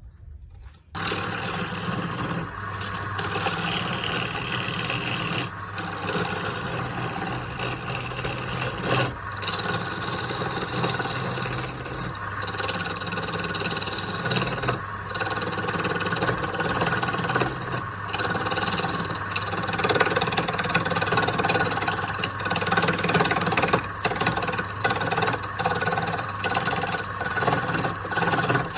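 Electric power tool working wood: a steady motor hum under a rough rasping of the tool on the wood, starting about a second in and breaking off briefly every few seconds.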